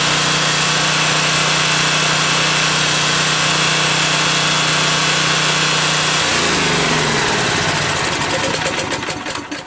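Generac 4000EXL generator's 7.8 hp single-cylinder engine running steadily on natural gas, then shut down about six seconds in, its pitch falling as it winds down and stops near the end.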